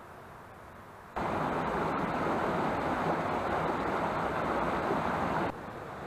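Rushing water of a mountain stream, a loud steady rush that starts suddenly about a second in and drops off sharply near the end to a softer flow.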